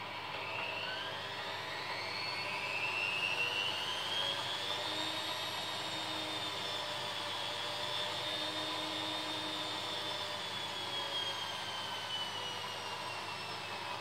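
Front-loading washing machine tumbling its wash load: the drum motor's whine rises over the first few seconds, holds steady, then slowly falls near the end. A steady hiss runs underneath.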